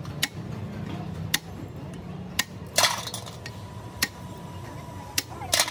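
Sharp metallic taps and clinks as valve springs are stripped from a cylinder head: a hammer strikes a tube tool set on the valve spring retainers to free the keepers, and loose springs and retainers clatter on metal. There are several single taps, with two longer, louder clatters, one about halfway through and one near the end.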